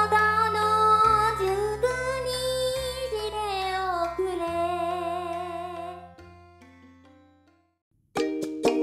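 Background music: a wavering melody over low held notes that change every couple of seconds, fading out about seven seconds in. After a short silence, a new plucked-string tune starts near the end.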